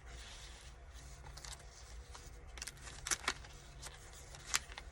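Paper pages of a handmade junk journal being turned and handled, a soft rustling with a few sharp clicks and taps, the loudest near the middle and one near the end.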